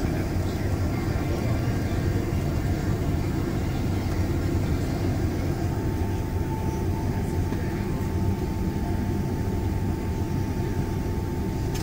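Steady airliner cabin noise of a Boeing 767-400ER: an even, low jet-engine and airflow noise, with a faint steady whine joining about halfway through.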